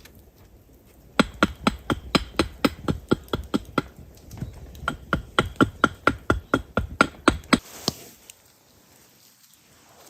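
Rapid hammering: a fast, even run of sharp knocks with a slight ring, about four to five a second, pausing briefly partway through and stopping abruptly near the end.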